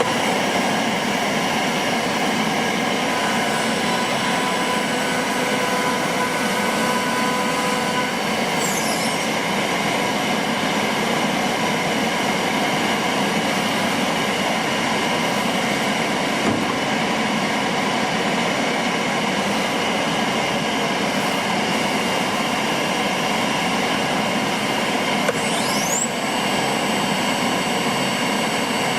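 CNC router with a 9 kW air-cooled spindle running with a loud, steady machine noise. The spindle's high whine falls away about nine seconds in and rises again about twenty-six seconds in. There is a single short knock about halfway.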